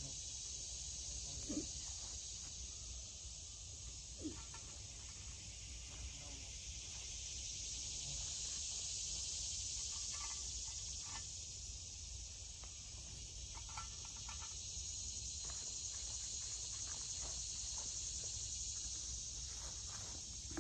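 Steady high-pitched insect chorus that slowly swells and eases, with two faint short knocks about a second and a half and four seconds in.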